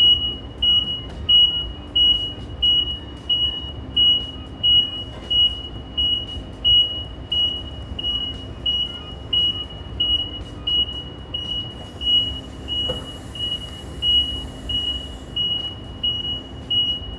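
Nissan electric forklift's backup alarm beeping steadily while the truck reverses, one high-pitched beep about every two-thirds of a second, with a low hum from the truck that comes and goes.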